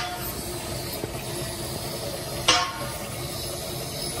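A single sharp metallic clank with a brief ring about two and a half seconds in, over a steady background of workshop machine noise.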